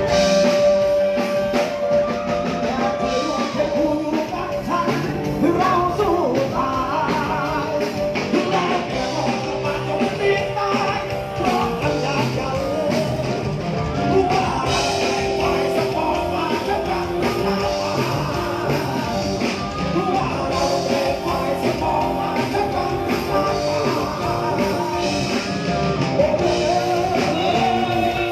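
Live band music: a Thai song sung over drum kit and electric guitar, playing continuously.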